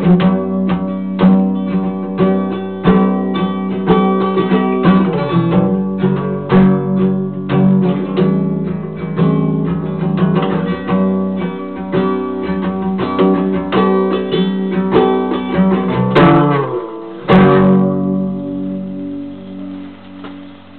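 Acoustic guitar music: quick picked and strummed notes, ending with two full strums about a second apart and a chord left ringing and fading.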